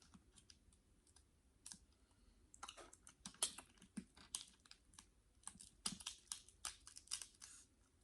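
Faint, quick clicky mouth and chewing sounds of a person eating seafood, sparse at first and then coming thick and fast from about two and a half seconds in until near the end.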